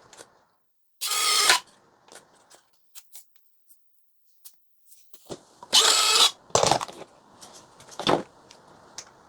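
A small power tool, likely a cordless driver, runs in short bursts of about half a second, twice loudly, with small clicks and handling knocks between them.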